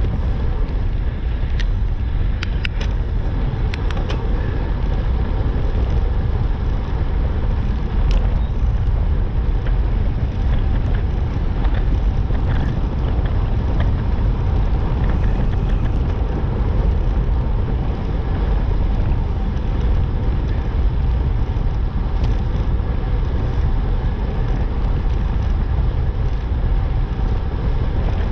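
Steady wind rushing over the microphone while riding along a road, with a few sharp clicks two to four seconds in.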